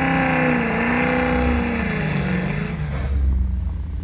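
Car engine revving up and down on an autocross run, its pitch climbing and dipping, then falling away to a deep low rumble about three seconds in.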